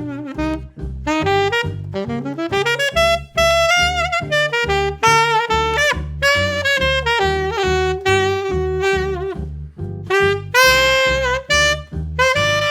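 Martin Committee III alto saxophone playing a swinging jazz melody, with vibrato on the held notes and a rising scoop into a note about two seconds in. A steady bass line of about two notes a second runs beneath it.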